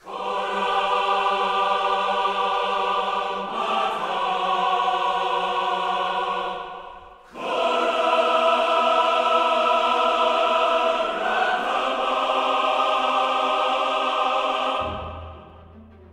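Background music of long held chords that shift every few seconds, with a brief drop about seven seconds in, fading out near the end.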